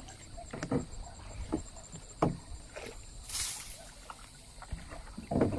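Irregular knocks and thumps with a brief hissing splash-like noise a little past the middle; the loudest thump comes near the end.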